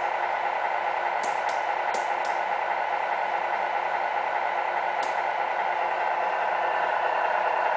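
Tamiya 1/14 Scania RC truck running steadily across a wooden floor, a steady hum of its drive that grows a little louder near the end, with a few light clicks about a second or two in and once more about five seconds in.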